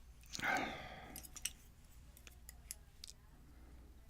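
Faint, scattered small metallic clicks and ticks from the lock's pins, spools and springs being handled after disassembly, with a short breathy sound about half a second in.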